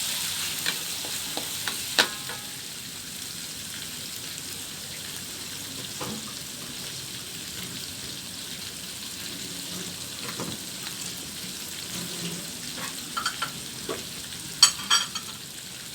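Pounded shallots, garlic and ginger sizzling in hot oil in a wok, stirred so the utensil scrapes and knocks against the pan: one sharp knock about two seconds in and a quick cluster of clicks near the end.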